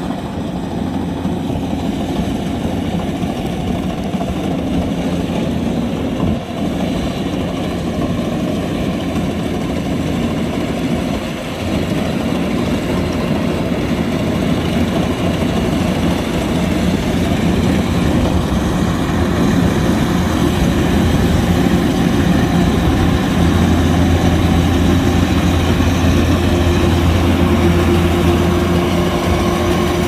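Kubota DC-105X combine harvester's diesel engine and machinery running with a steady, low drone, growing a little louder about halfway through.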